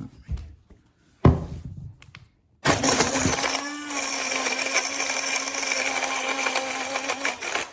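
A knock about a second in, then a portable rechargeable mini blender's motor starts and runs steadily for about five seconds, with icy slush rattling inside the cup.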